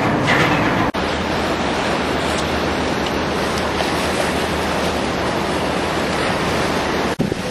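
Steady rush of water along the hull and wind on the microphone aboard an old diesel pilot cutter under way, with a low engine drone underneath. The sound briefly cuts out about a second in.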